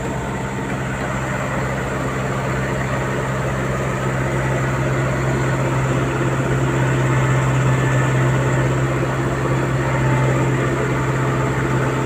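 Heavy diesel engine running steadily with a low drone, getting a little louder about halfway through.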